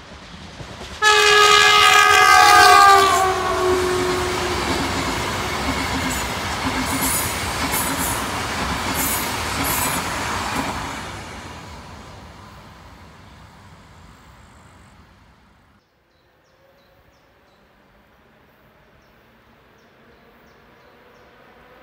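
ES2G Lastochka electric train sounding its horn as it passes, a loud blast of about three seconds that drops in pitch, the kind of greeting that the crews give to trackside watchers. Then the rush and clatter of its wheels on the rails, fading away; after a sudden cut, a faint sound of another train in the distance.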